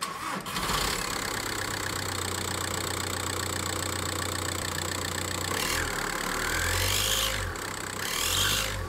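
Škoda Octavia's TDI diesel engine starting and running at idle; from about six seconds in the engine note rises and falls a couple of times.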